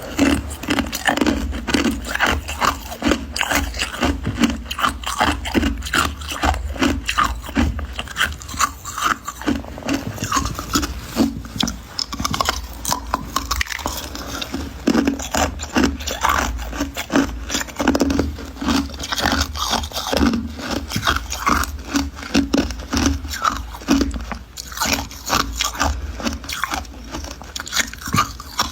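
Crunchy ice being bitten and chewed close to the microphone: a continuous run of sharp crunches and cracks, several a second.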